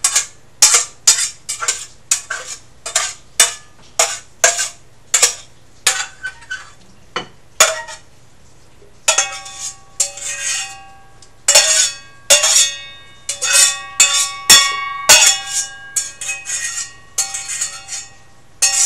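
Spoon scraping and clinking against a pan and bowl, a long run of quick strokes about two a second. From about halfway through, many strokes leave a ringing tone from the dish.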